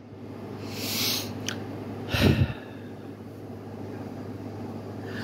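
A person breathing close to a phone's microphone: a breath in about a second in, then a short, sharp breath out about two seconds in that is the loudest sound. A faint steady hum runs underneath.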